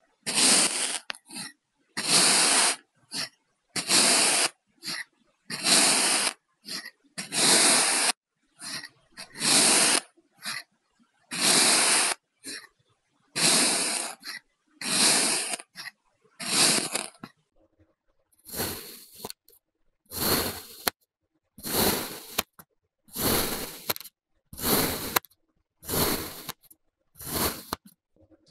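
Kinetic sand being cut again and again, each cut a short burst of scraping noise, about one every second or so. From about two-thirds of the way through the cuts become shorter and sharper.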